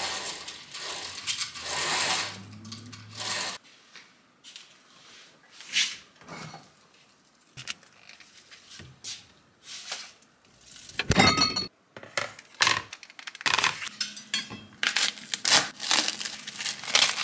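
Light clinks and knocks of small hard objects being handled and set down, with one louder ringing clink about eleven seconds in and a quick run of taps near the end.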